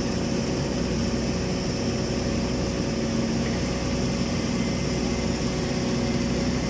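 Automatic girth welding machine running steadily along a tank's horizontal seam on its final pass: a constant equipment hum with an even hiss over it.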